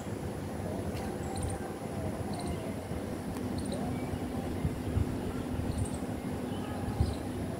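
Outdoor ambience: wind rumbling and buffeting on the phone microphone, with faint short high chirps every second or so and a faint steady low hum starting about three seconds in.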